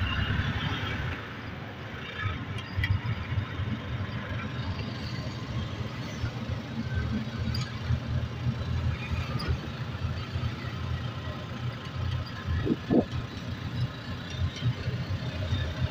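Steady rumble of road traffic, vehicle engines running, with a short rising tone late on.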